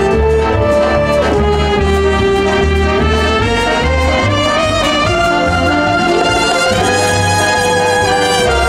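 Instrumental background music: a lead melody climbing gradually in pitch over a pulsing bass line and a steady light beat.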